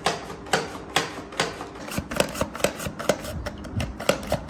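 Red onions being sliced on a hand mandoline slicer: a quick series of crisp cutting strokes, about two a second at first and faster in the second half.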